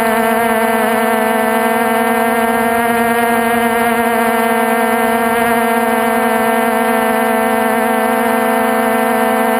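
Multirotor drone's electric motors and propellers humming steadily in flight, heard close up from the camera on the craft: a loud, even buzz that wavers slightly in pitch.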